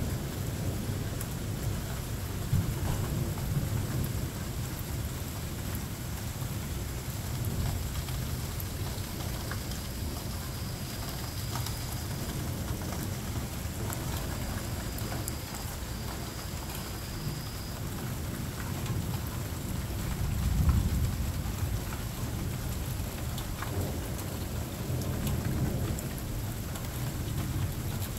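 Heavy rain falling steadily in a thunderstorm, with thunder rumbling, loudest about twenty seconds in.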